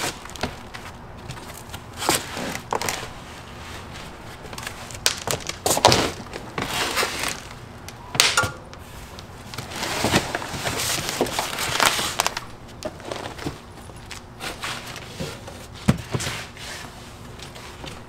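Cardboard shipping box and foam packing being handled and pulled away from a bike: irregular rustling and scraping with occasional sharp knocks and thumps.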